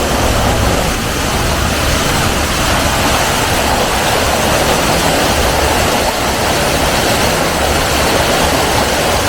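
Aira Force waterfall's water rushing down the gorge: a loud, steady, even rush of falling water.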